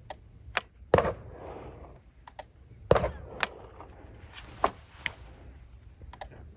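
A GR-1 Anvil coil gun being triggered without firing properly: about a dozen sharp, irregular clicks and knocks, the two loudest about one and three seconds in, as its solenoid trips. The fault was a blown fuse after a wrong power setting.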